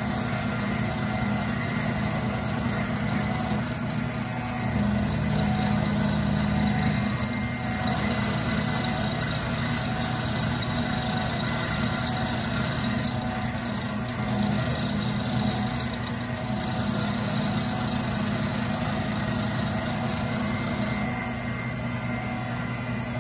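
Milling machine running steadily while an end mill climb-mills across the face of an aluminium block, a continuous motor and spindle hum with steady tones.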